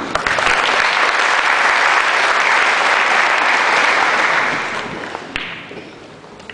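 Audience applauding, holding strong for about four and a half seconds and then dying away. A single sharp click comes near the end as the applause fades.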